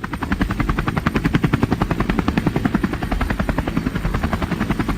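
A machine motor running steadily with a rapid, even chugging of about ten beats a second.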